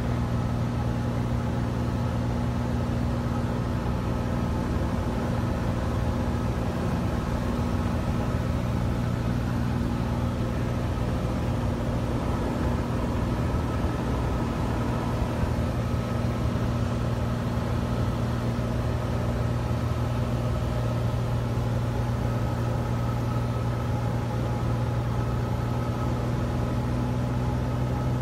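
Cessna 172's piston engine and propeller droning steadily in level flight, heard from inside the cabin.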